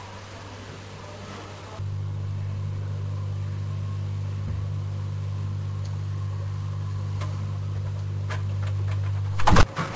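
Steady low electrical hum of a refrigerator, stepping up a little about two seconds in, with a few light clinks as a bottle is taken out and a loud knock near the end.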